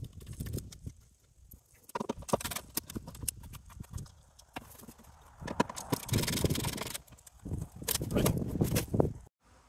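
Scattered clicks and knocks with rough scraping, from hands handling tools and parts against a UTV's underside while working on gravel; the scraping comes in two longer stretches in the second half.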